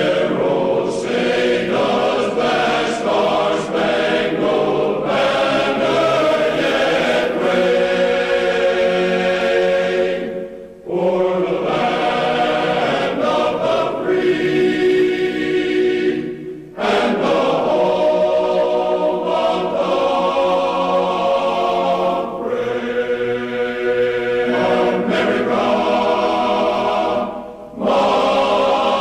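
Choral music: voices holding slow, sustained chords, with three short breaks between phrases.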